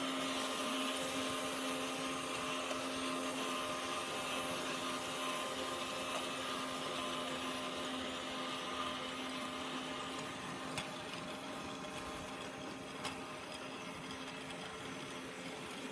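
Toy Christmas train's small electric motor whirring steadily as the train runs along its plastic track, with wheels rattling over the rails. Two light clicks come in the second half.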